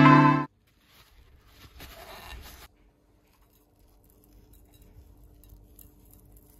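Coarse salt sprinkled by hand onto a pork shoulder's skin in a glass bowl and rubbed in with the fingers: faint light rustling and scraping, loudest from about one second in to near the three-second mark. A guitar tune cuts off abruptly half a second in.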